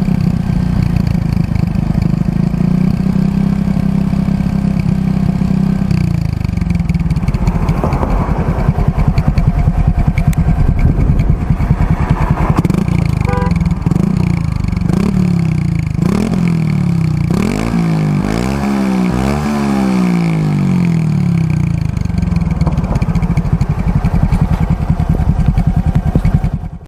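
Honda XRM RS 125's single-cylinder four-stroke engine running through an Exos R5 Pro aftermarket exhaust with its silencer fitted. It idles steadily, then is revved in a series of quick throttle blips that rise and fall, coming fastest past the middle, before settling back to idle.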